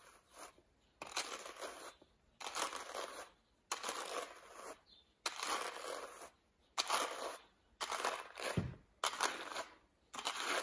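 Wooden hand cards with wire teeth brushing through washed wool, one card drawn across the other in a series of rasping strokes, roughly one a second. A soft low bump comes about two-thirds of the way through.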